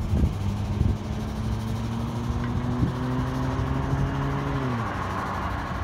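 A motor runs at a steady pitch, steps up slightly about halfway, then winds down and stops near the end, while a hiss builds behind it.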